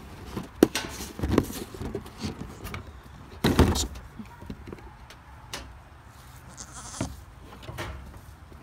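Knocks and clatter from a plastic treat jar and its screw lid being handled, with a loud rough goat bleat about three and a half seconds in.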